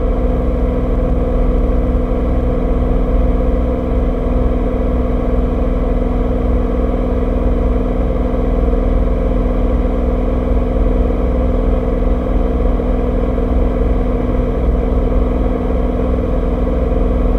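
Cirrus SR22T's turbocharged six-cylinder engine and four-blade propeller running at take-off power through the take-off roll and climb-out, an even, unbroken drone heard from inside the cabin.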